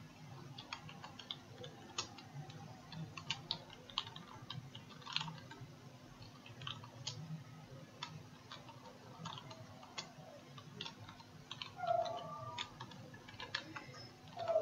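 Faint, irregular keystrokes on a computer keyboard as a few words are typed.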